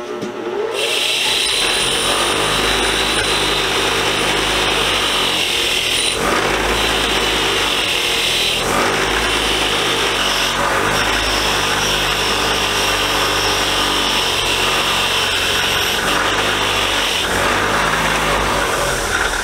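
Bench grinder with a wire wheel coming up to speed at the start, then running with a steady motor hum while a steel punch is held against the spinning wire brush to scrub off rust and grime. The harsh scratching of wire on metal breaks off briefly a few times as the punch is lifted and turned.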